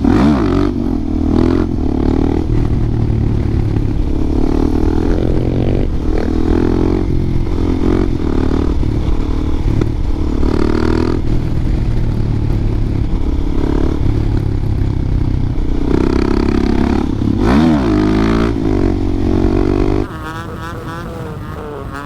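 Suzuki DR-Z400SM supermoto's single-cylinder engine under way, revving up and down through the gears over and over, with a sharp rev rise and fall a few seconds before the end. About two seconds before the end the engine sound drops noticeably quieter.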